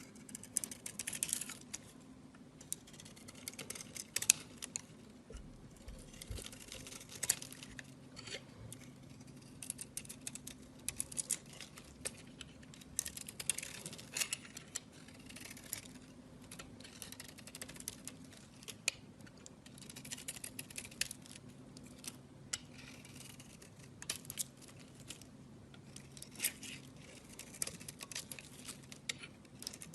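A blade cutting and scraping into a bar of soap, with crisp crackles and the crumbling of shavings in quick, irregular bursts.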